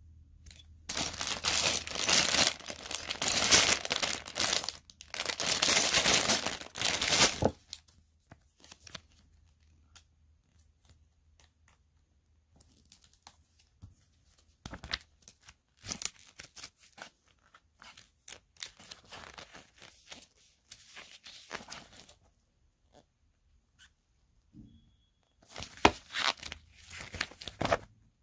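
Lego set packaging being torn open and crinkled for several seconds. After that come sparse light clicks and taps, and a second burst of crinkling near the end.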